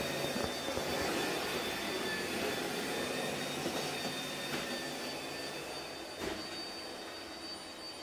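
Vacuum cleaner running steadily off to one side, a high whine over a steady rushing noise, growing a little quieter toward the end. A single short knock about six seconds in.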